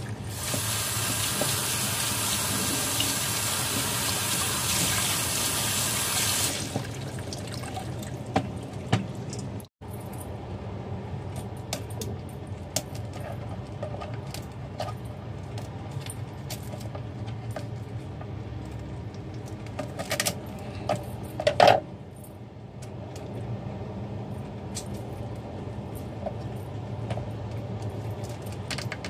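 Tap water runs in a steady stream over live crabs being washed, then stops about six and a half seconds in. Later, kitchen scissors snip and crunch through crab shell in scattered clicks and cracks, two of them louder, about two-thirds of the way through.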